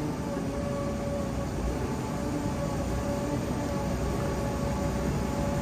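Telehandler's diesel engine running steadily, with a constant whine over a low rumble, as it works its loaded bucket over a trailer.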